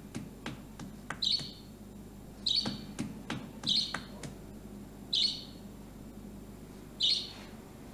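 Caged budgerigar giving short high chirps, five in all, spaced a second or two apart. A few light sharp taps sound between the chirps over the first four seconds.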